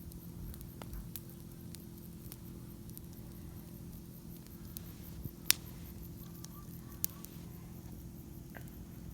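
Wood campfire crackling, with scattered small ticks and two sharp pops about five and a half and seven seconds in.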